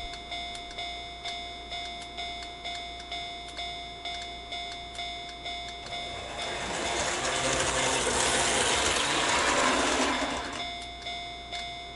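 Japanese level-crossing warning bell ringing steadily at about two dings a second. From about six seconds in, a rushing noise of a passing train swells over the bell and fades away by about ten and a half seconds.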